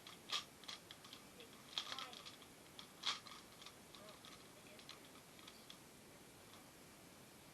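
Pokémon trading cards being handled: a few light, sharp clicks and taps in the first half, then quiet.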